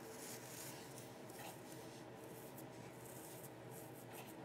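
Faint rustling and rubbing of fingers pressing dried moss onto glue on the stand's base, with a few soft scratchy touches.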